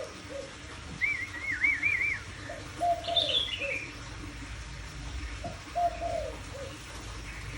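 A songbird sings short, wavering high warbled phrases, once about a second in and again around three seconds in. A dove coos in repeated low notes alongside.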